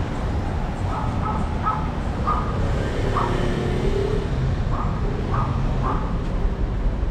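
Steady low outdoor rumble, like passing traffic, with a string of short animal calls at uneven intervals, each under half a second.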